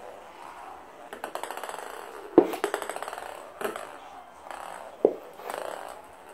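Ping-pong ball bouncing on a hard floor: runs of light ticks that come closer together as the bounces die down, and sharper knocks, the loudest about two and a half seconds in.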